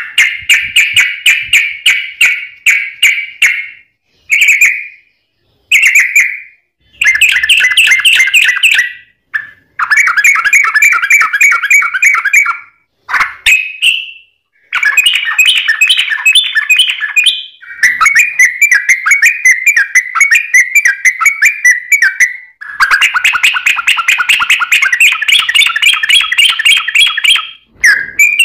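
Sooty-headed bulbul (trucuk) singing fast, tightly packed chattering phrases. The song comes in bursts of one to five seconds with short breaks between them.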